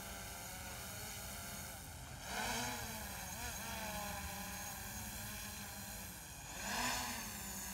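Faint, steady whine of a camera drone's propeller motors hovering, swelling twice with a brief rise and fall in pitch, about two seconds in and again near the end.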